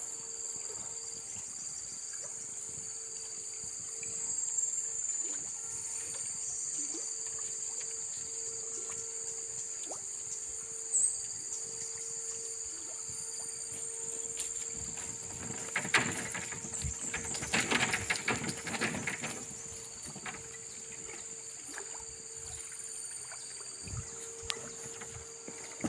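Insects droning in a steady, high-pitched chorus. For several seconds in the middle, footsteps crunch and rustle through dry leaves and twigs.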